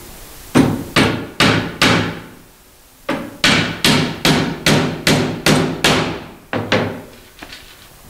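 Hammer driving nails into the wooden planks of a breeding box. Four sharp blows, a pause of about a second, then a steady run of about eight blows at roughly two or three a second, each ringing briefly, and a few lighter taps near the end.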